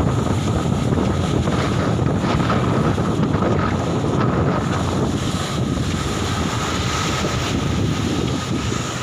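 Wind buffeting the microphone with a heavy rumble, over the wash of waves breaking on a sandy beach.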